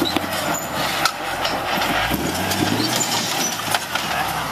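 Off-road Jeep engine running at low speed, its low hum rising and falling, with scattered knocks and clicks.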